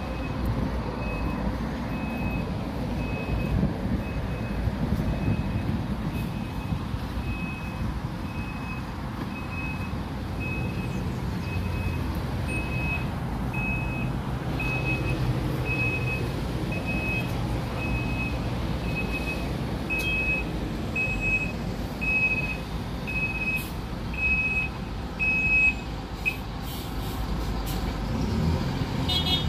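Diesel city buses idling with a steady low rumble, while a vehicle warning beeper sounds about once a second and stops shortly before the end.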